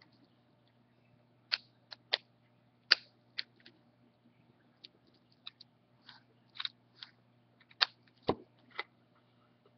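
Dissecting scissors snipping through a perch's skin and tissue around the eye: a series of short, crisp snips at uneven intervals, over a faint steady hum.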